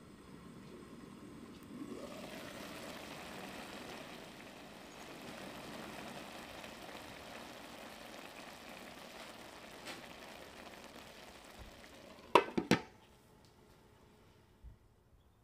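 Basmati rice in tomato sauce simmering in a pan, a steady bubbling hiss as the water cooks down, then two sharp clinks close together about twelve seconds in as the glass lid is set on the pan.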